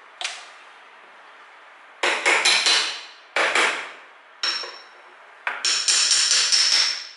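Metal tool knocking on the metal body of a mixer tap during disassembly: one knock, then four bursts of rapid sharp strikes, the last two with a high metallic ring.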